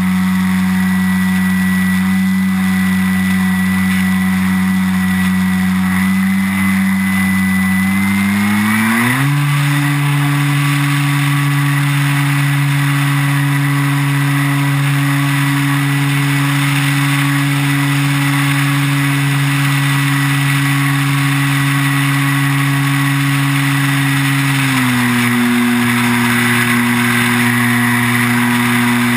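Electric motor and propeller of an E-flite T-34 Mentor RC plane, heard from a camera on the airframe: a steady hum with wind rush over it. About nine seconds in the throttle opens and the pitch climbs and holds, then eases back a little near the end.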